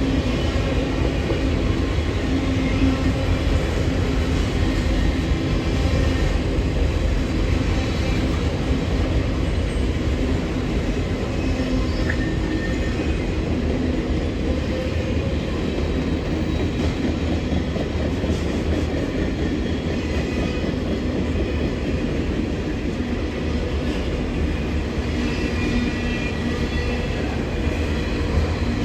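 A train rolling past: a steady rumble and rattle of railroad cars on the track.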